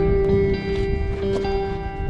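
Background music: held, sustained instrumental notes over a busy low rhythmic pulse.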